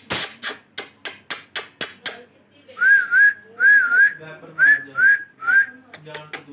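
Parrot making a run of quick sharp clicks, about five a second, then a string of short whistled notes, mostly in twos, each one rising and dipping in pitch.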